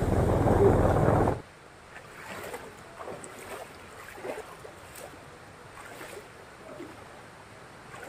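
Loud rumbling wind noise on the microphone, which cuts off suddenly about a second and a half in. After it comes the much fainter sound of a shallow forest stream trickling.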